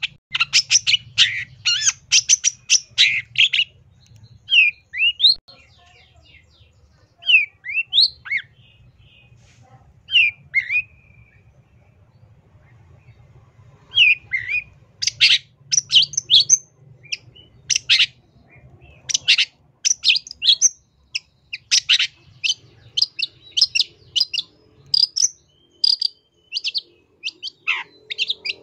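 Long-tailed shrike (cendet) singing: fast runs of harsh, chattering notes, thinning midway to scattered short rising and falling calls, then dense chattering again from about halfway.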